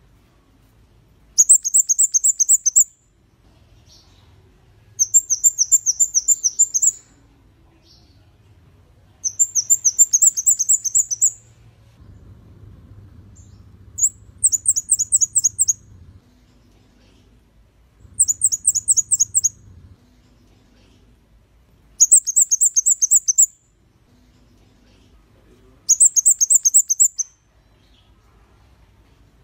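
Scarlet-backed flowerpecker (kemade kepala merah) singing: short bursts of rapid, very high, thin notes, each burst about a second and a half long, repeated seven times about every four seconds.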